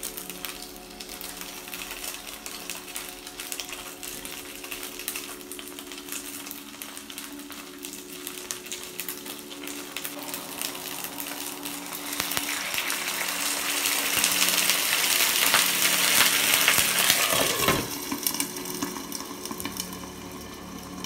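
Gyoza frying in oil in a nonstick pan, sizzling steadily, with light clicks of chopsticks against the pan. About twelve seconds in, the sizzle grows much louder as water hits the hot pan to steam the dumplings. It drops suddenly near the end, when a glass lid goes on.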